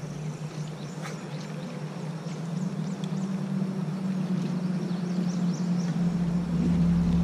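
Bow-mounted Minn Kota Ultrex electric trolling motor humming steadily, its pitch stepping up a little about two and a half seconds in. A low rumble joins about six seconds in.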